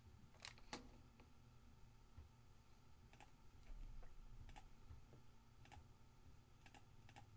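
Faint computer mouse clicks, several spread out with pauses between them, over a quiet room: a button on a web page being clicked again and again.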